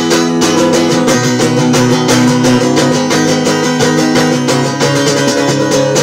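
Guitar strummed in a fast, steady rhythm, chords ringing on between the strokes.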